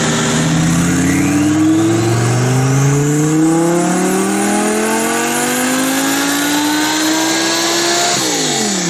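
Twin-turbo Audi R8 engine making a full-throttle dynamometer pull. The exhaust note climbs smoothly in pitch for about eight seconds with no gear changes, then falls away quickly as the throttle is lifted near the end.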